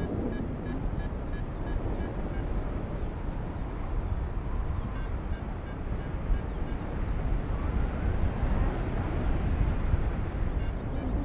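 Wind rushing over the microphone of a paraglider pilot's camera in flight: a steady low rumbling buffet. Faint quick beeping sits under it for the first few seconds.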